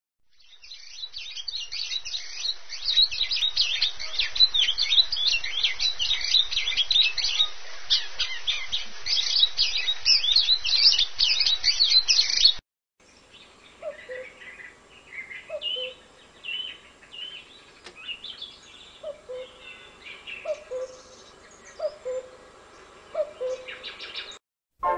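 A dense chorus of songbirds, many overlapping high chirps and trills, fading in at the start and cutting off suddenly about halfway. Then a sparser bird chorus, with a low two-note falling call repeated about every second and a half under scattered higher chirps.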